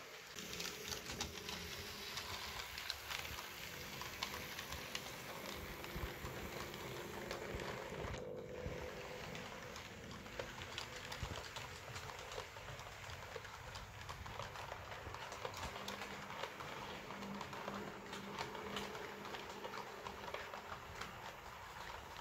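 HO-scale Jouef model train running along the layout's track, its wheels clicking irregularly on the rails over a faint steady motor hum.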